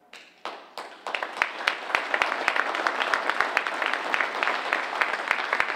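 Audience applauding: a few scattered claps at first, building to steady applause about a second in.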